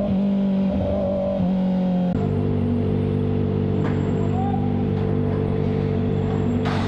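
Kawasaki ZX-4RR's inline-four engine running in second gear at low speed in traffic, its pitch wavering slightly. About two seconds in, the sound switches abruptly to a steady, unchanging drone.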